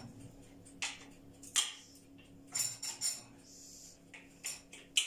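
Kitchenware clinking and knocking: about eight short, sharp clicks and clatters, irregularly spaced, as cups, utensils and dishes are handled.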